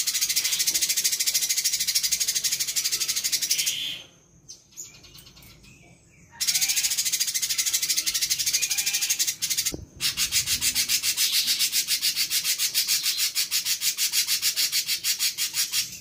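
Cucak cungkok (leafbird) giving a fast, very high-pitched chattering twitter, a mimicked indigobird 'cerecet', in two long runs with a pause of about two seconds between them. The last run is a steady rapid pulsing of about five notes a second.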